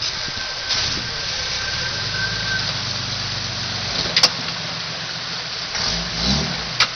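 Lifted Jeep Cherokee engine running at low revs as it crawls over rocks, with a short rise in revs near the end. A few sharp knocks come about four seconds in and again at the very end.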